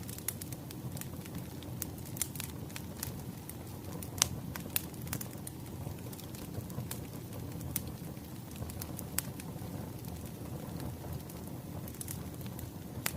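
Wood fire crackling: irregular sharp pops and snaps over a low steady rumble, with one louder pop about four seconds in.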